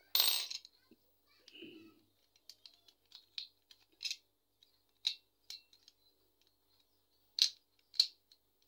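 Metal motorcycle phone holder being handled, its spring-loaded clamp parts giving sharp, irregular clicks and clacks, the two loudest near the end. A short louder clatter right at the start.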